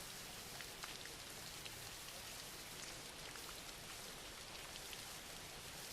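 Soft, steady rain falling on a surface, with faint scattered drops.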